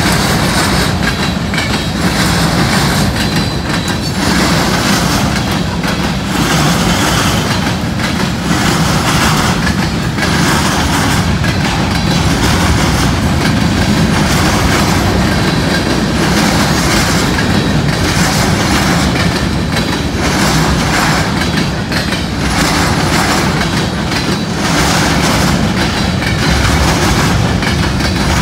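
Freight cars of a long mixed manifest train rolling past close by: a steady rumble, with the wheels clacking over rail joints in a repeating rhythm.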